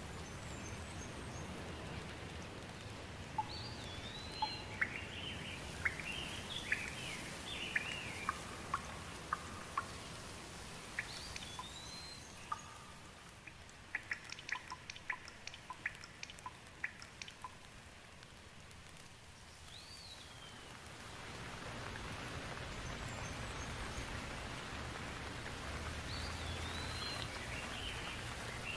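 Steady rain falling, with birds chirping in short bursts of rising and falling calls and a run of sharp drips in the middle. The rain eases a little in the middle, then swells again about two thirds of the way through.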